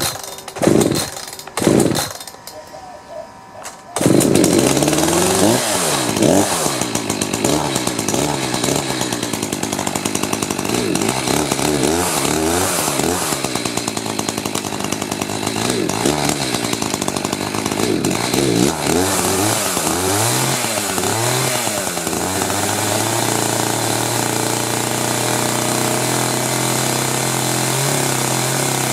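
Echo CS-590 two-stroke chainsaw being pull-started cold: a few quick pulls in the first two seconds, then it catches about four seconds in. It runs with its revs rising and falling, then settles to a steady idle for the last several seconds.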